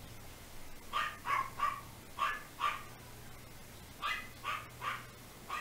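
Dogs barking in two quick runs: about five barks starting a second in, then about four more near the end.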